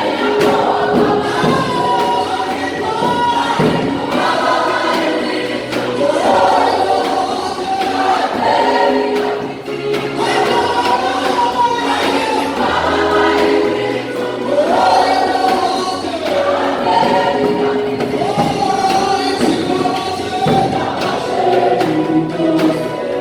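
Choir singing a gospel worship song, several voices together in sung phrases over low sustained accompanying notes.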